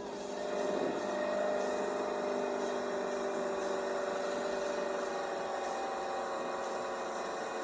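A motor running steadily with a humming tone, its pitch drifting slightly lower in the second half.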